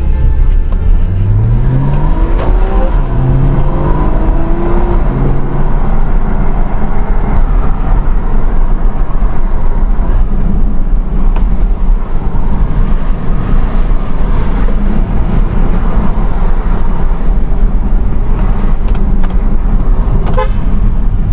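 Porsche Cayman's engine and road noise heard from inside the cabin. In the first few seconds the engine note rises as the car pulls away through the gears, then it runs steadily under tyre and road noise.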